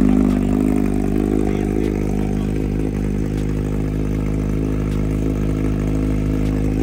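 Kawasaki Z900 inline-four engine idling steadily just after being started, easing slightly in level in the first half second.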